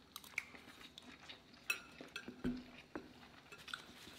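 Faint eating sounds: chewing, with scattered light clicks of a metal spoon against a dish and a few soft knocks.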